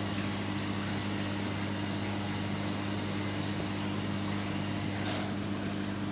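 Steady low electrical hum with an even hiss, the background drone of running aquarium equipment such as pumps and ventilation around a reef tank.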